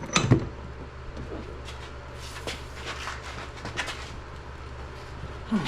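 Metal tools and parts clinking and knocking while a wrench is being set up to tighten a hydraulic cylinder's head nut. There is one louder knock just after the start and light clicks after it, over a steady low hum.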